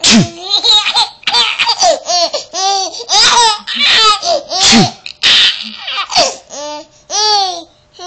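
A baby laughing hard in a long run of short bursts of laughter, each rising and falling in pitch.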